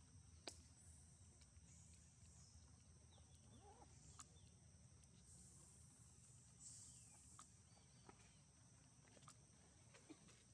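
Near silence: faint outdoor background with a few soft clicks.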